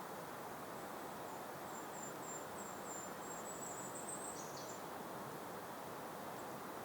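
Steady breeze with a high, thin bird song: a string of short, very high notes starting about a second in that run together into a trill, then drop in pitch and stop a little after the middle.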